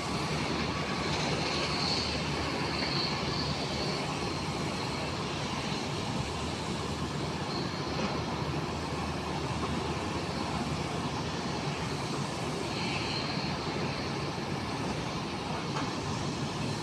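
Steady jet noise from a distant airliner's engines as it rolls along the runway, with a faint high whine that comes and goes.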